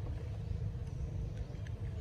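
Steady low rumbling background noise, with a few faint short high chirps about a second and a half in.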